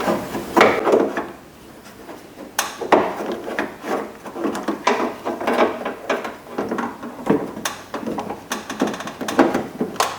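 Irregular clicks, knocks and rubs of plastic and metal parts being handled as a car's exterior door handle and its linkage rod are fitted back into the door, with a quick run of small ticks about nine seconds in.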